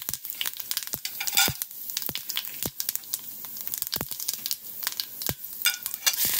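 Mustard, fenugreek and cumin seeds frying in hot oil in a pan: a steady sizzle with irregular sharp pops and crackles, several a second, as the mustard seeds splutter. Near the end, chopped ginger is tipped into the oil and the sizzle briefly grows.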